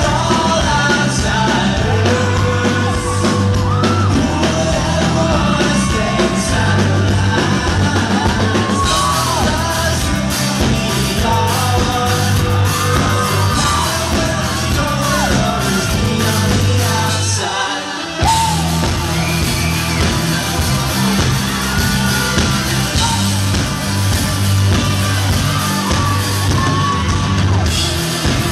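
Live rock band playing: a male lead singer over electric guitars, bass and drums. The band drops out for a moment about 18 seconds in, then comes back in.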